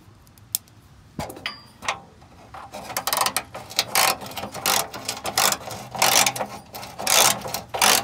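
Hand ratchet clicking in repeated short bursts as it is swung back and forth to tighten the bolt on a loose exhaust heat shield. The burst of clicks comes every half second to a second, starting about two and a half seconds in, with a couple of single clicks before.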